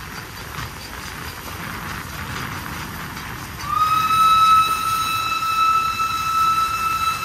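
Steam locomotive whistle blowing one long, steady blast that starts about halfway in, over the rolling noise of the moving train.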